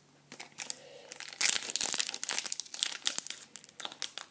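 Foil wrapper of a trading card pack crinkling and tearing as it is pulled open by hand. A few faint rustles at first, then a dense crackle from about a second and a half in.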